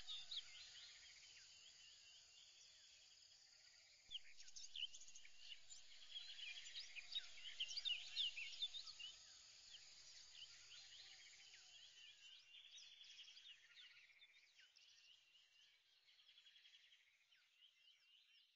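Faint chirping of many small birds, short quick calls overlapping over a light hiss; it grows louder about four seconds in and fades away near the end.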